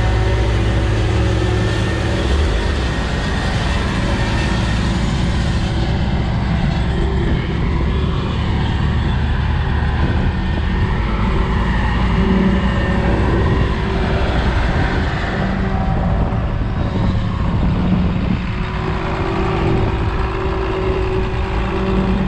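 Heavy diesel farm machinery engine running steadily with a loud low drone.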